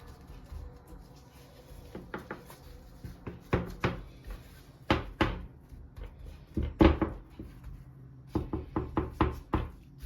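Kitchen work: a string of sharp knocks and clatter in irregular groups, ending in a quick run of about six knocks.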